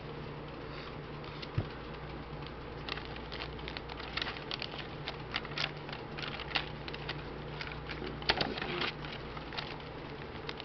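Paper pages of a handmade junk journal rustling and crackling as fingers turn and handle them, in a run of small irregular crackles, over a faint steady low hum.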